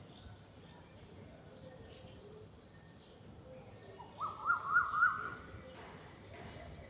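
Asian koel (koyal) calling: a quick run of about four rising notes a little past the middle, the loudest sound here. Faint high chirps from smaller birds run underneath.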